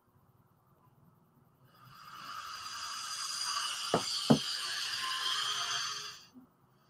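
A steady hiss fades in and holds, with two sharp clicks in quick succession in the middle, then cuts off suddenly near the end.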